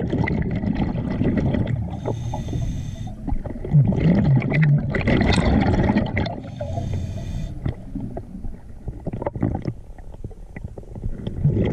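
Underwater sound of a scuba diver: a steady rumbling of water and breathing gear, with a hissing rush of exhaled bubbles twice, a few seconds apart.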